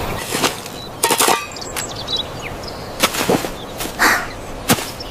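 A series of sharp knocks and clangs, about six spread over a few seconds, some with a short ringing tail.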